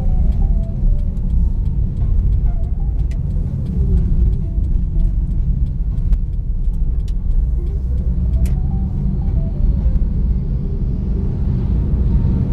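Steady low rumble of a car's engine and tyres heard from inside the cabin while driving, with a fainter tone that slides down and back up in pitch.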